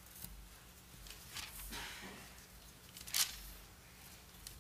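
Thin Bible pages being turned, a few short paper rustles with the loudest about three seconds in.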